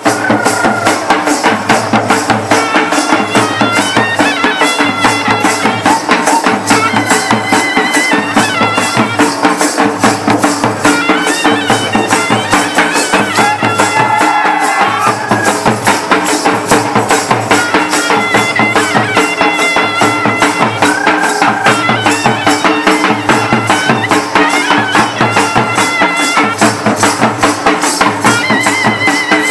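Traditional folk dance music played live: two-headed barrel drums beat a fast, steady rhythm under a high, shrill wind instrument repeating a short melody.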